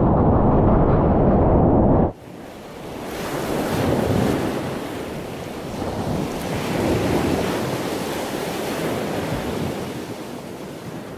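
Ocean surf: a loud, muffled rumble of wind and churning water on an action camera's microphone that cuts off abruptly about two seconds in, followed by the hiss of breaking waves swelling and fading several times.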